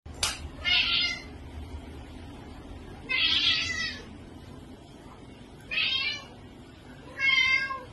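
Domestic cat meowing four times, each call lasting under a second, spaced one and a half to two and a half seconds apart.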